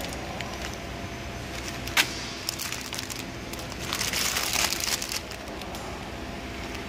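Plastic-wrapped packs of dry stick noodles handled and set on a steel weighing scale: the film crinkles and the dry noodles rustle, with one sharp knock about two seconds in and a louder rustle a little past the middle. A steady low hum runs underneath.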